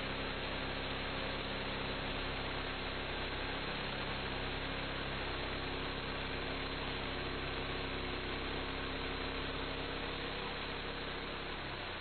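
Homemade band sawmill running steadily on its 11-horsepower gas engine, its band blade sawing lengthwise through a log as the saw head is pushed along.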